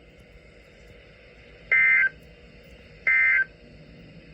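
Emergency Alert System end-of-message code: two short identical bursts of SAME digital data tones, about a second and a half apart, over faint radio hiss, signalling the end of the alert message.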